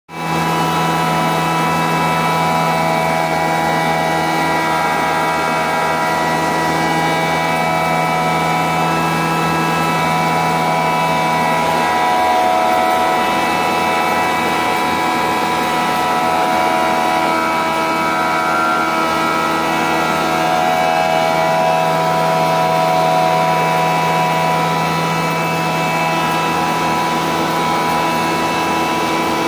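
Double-head pulveriser (flour mill) running, driven by its electric motor through a V-belt: a steady machine hum with several steady whining tones above it.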